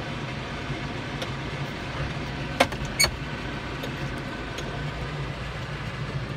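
Vehicle engine running steadily with a low hum, and two sharp clicks or knocks close together a little before halfway.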